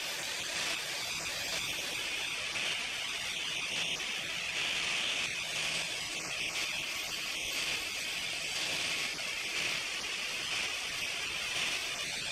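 Small electric angle grinder with an old, worn flap disc running steadily against an oiled cast-iron wood cook stove top, sanding off thick rust.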